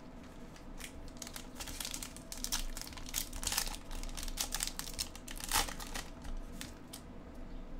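A baseball card pack's printed wrapper crinkling and tearing as it is opened and handled, in irregular bursts, loudest about three and a half seconds in and again about five and a half seconds in.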